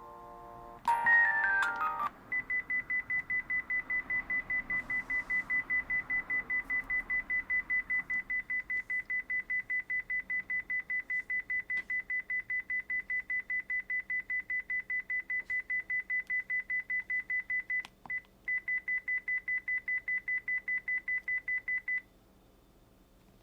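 Sharp Vodafone V601SH mobile phone's built-in electronic tones: a short stepped run of beeps, then a single high beep repeated about four times a second, broken once by a click late on, that cuts off suddenly. The sequence goes with the phone's battery-empty warning.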